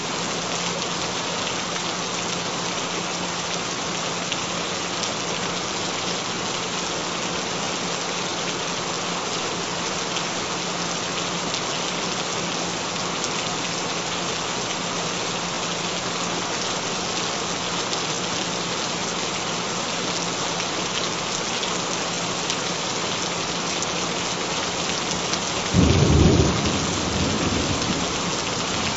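Steady rain falling, with a clap of thunder near the end that rumbles away over a couple of seconds.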